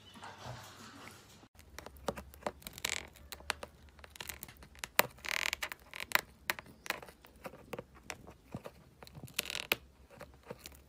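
A kitten making quick, irregular clicking and smacking mouth sounds, heard close up, with three short breathy hisses spread through the sound.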